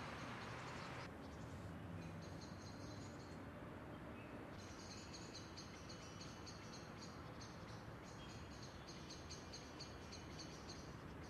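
Faint chirping of insects at night, a quick even pulsing high in pitch that stops and starts, over a low steady hiss.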